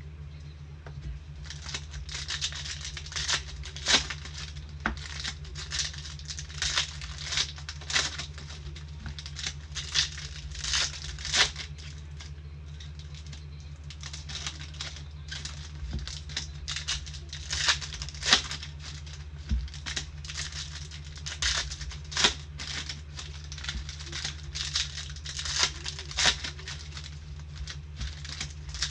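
Plastic and foil wrapping of trading-card packs crinkling and tearing in irregular crackly bursts as the packs are opened, over a steady low hum.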